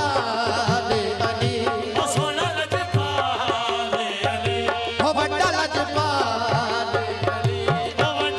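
Live qawwali: singers' voices over held harmonium chords and a steady tabla beat.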